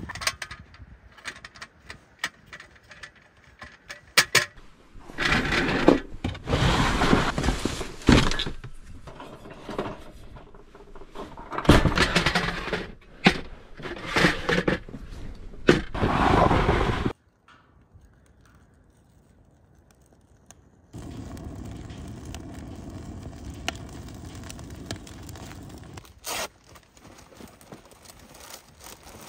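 Scraping, knocking and clattering handling noises in several loud stretches, typical of clearing snow and setting up a fire by hand, which cut off abruptly about two-thirds of the way in. A fainter steady hiss follows, with one sharp click near the end.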